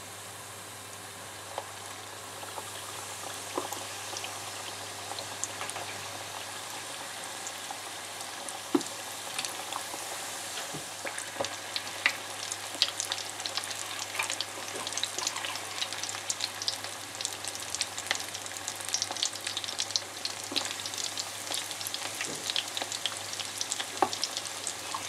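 Breaded chicken drumsticks frying in a pan of hot oil: a steady sizzle full of crackles and pops. It builds over the first few seconds and the crackling grows denser later on.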